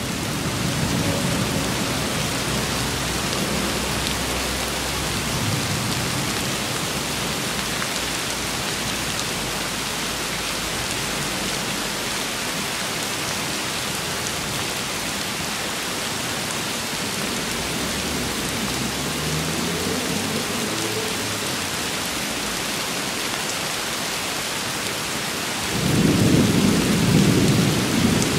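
Steady rain falling, with low thunder rumbling under it now and then. A louder roll of thunder starts near the end.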